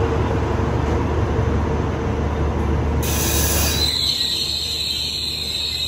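Passenger train coaches rolling past along the platform with a steady rumble of wheels on rail. About three seconds in the rumble drops away and a high, steady squeal sets in.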